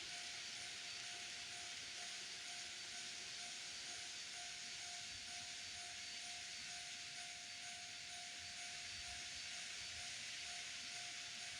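N-gauge model train running on the layout's track: a steady hiss with a faint steady tone underneath.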